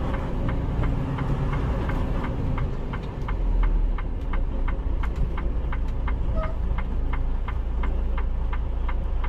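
Semi truck's diesel engine running, heard from inside the cab, with a low steady rumble and a regular sharp ticking about four times a second.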